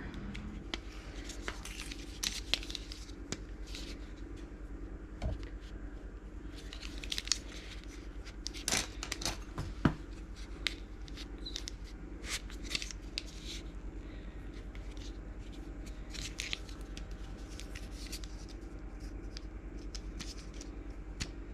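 Small plastic miniature parts being handled and pressed together: scattered short clicks and scrapes as a tiny leg is pushed at its socket without snapping in, over a steady low hum.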